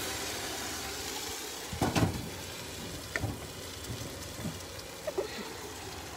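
Kadi batter sizzling and hissing as it hits the hot wok of fried green onions, the hiss slowly dying down. A few knocks of the steel pot and wooden spatula against the wok, the loudest about two seconds in.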